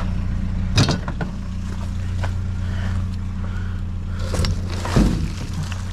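A vehicle engine idling with a steady low hum. Over it come a few sharp knocks, one about a second in and two more near the five-second mark, as of hard objects being moved in the dumpster.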